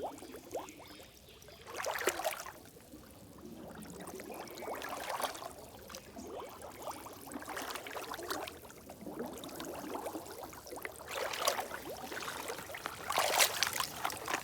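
Water splashing and pouring in several short, irregular bursts, loudest near the end.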